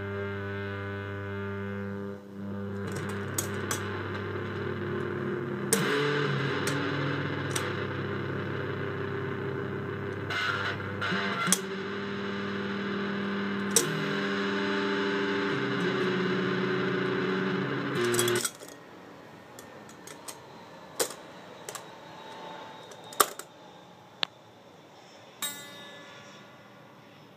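Electric guitar played through a homemade distortion stompbox, giving a sustained distorted drone whose pitch shifts a few times before it cuts off suddenly about two-thirds of the way through. After that there is a quieter hum with scattered clicks and knocks from the guitar and pedal being handled.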